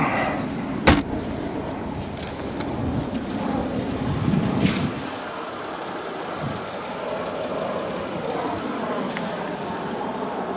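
Trunk lid of a 2003 Mercedes-Benz E320 shut about a second in: one sharp slam, over a steady low background rumble.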